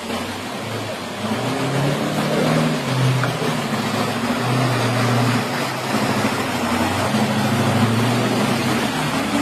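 An off-road crawler's engine revving up and down unevenly at low speed, over the steady rush of creek water.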